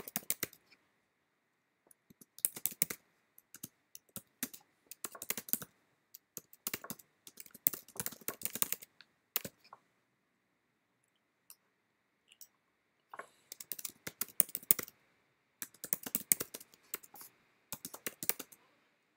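Typing on a computer keyboard: quick runs of key clicks in bursts, with a pause of a few seconds about halfway through.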